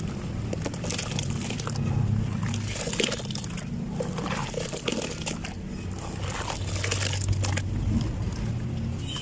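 Clumps of dried sand-cement crumbling and breaking, a run of irregular crisp crunches and crackles over a steady low hum.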